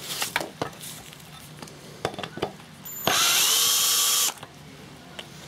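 Ryobi power drill running for just over a second, backing a bolt out of the engine's sheet-metal air-deflector panel, as a steady whine about three seconds in. Before it, a few light clicks and knocks as the drill is set on the bolt.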